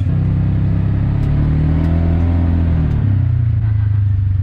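Side-by-side UTV engine running as the vehicle drives, heard from inside the open cab. Its pitch climbs over the first two seconds or so, drops back about three seconds in, then holds steady.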